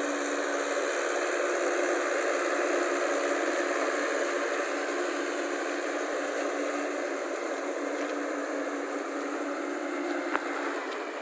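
Mahindra tractor's diesel engine running steadily under load as its cage wheels churn through flooded mud and water, a steady hum over a wash of noise.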